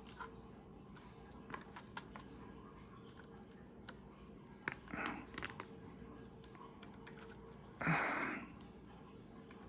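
Faint small clicks and scrapes of plastic cassette parts being handled while a spring and clip are fitted by hand into an Elcaset tape. There is a short rasping noise about five seconds in and a louder one, lasting about half a second, near eight seconds.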